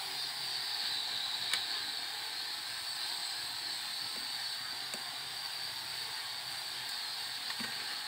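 Steady high hiss with a few faint clicks and taps as the opened plastic drone remote control and its circuit board are handled.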